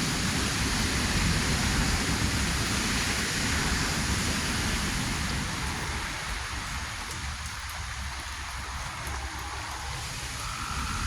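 Steady rain falling, with the low rumble of a thunderclap dying away over the first several seconds.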